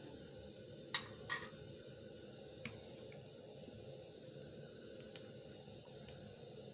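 Ghee melting in a hot steel wok: a faint steady hiss with a few sharp crackles, the two loudest about a second in and smaller ones scattered after.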